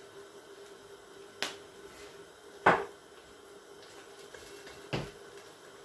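Three sharp knocks from a glass spice jar being handled and set down after shaking thyme into the pot, the middle one loudest, over a faint steady hum.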